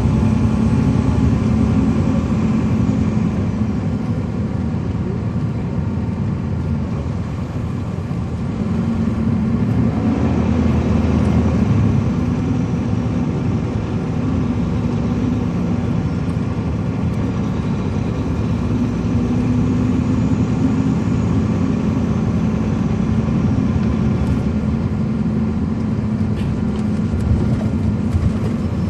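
Caterpillar C13 diesel engine of a 2007 MCI D4500CL coach, heard from inside the bus, running with a steady low drone that swells and eases a few times.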